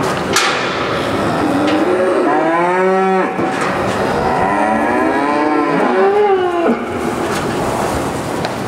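Holstein dairy cows mooing: one call about two and a half seconds in and a longer, wavering one from about four and a half seconds to nearly seven, with a few sharp knocks around them.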